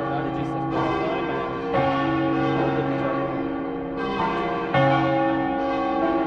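Church bells of Saluzzo cathedral's tower ringing together, their long tones overlapping, with fresh loud strikes about two seconds in and again near the end.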